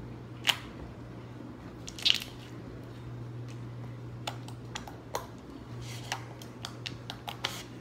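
Homemade glue-and-borax slime being stretched and kneaded by hand: scattered sticky clicks and squelches, several close together near the end, over a steady low hum.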